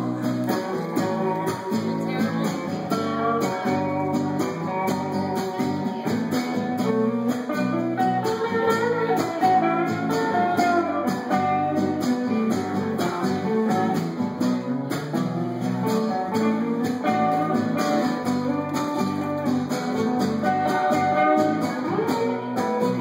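A live band playing an instrumental guitar-led passage of a song, with steady strummed and picked guitar and no singing.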